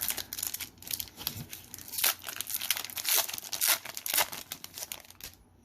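Foil wrapper of a Pokémon booster pack being torn open and crinkled, a run of quick crackles and rips that stops shortly before the end.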